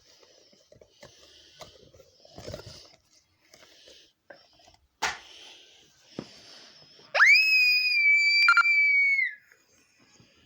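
Soft breathy sounds, then about seven seconds in a sudden loud high-pitched squeal that swoops up and holds one pitch for about two seconds before dropping off.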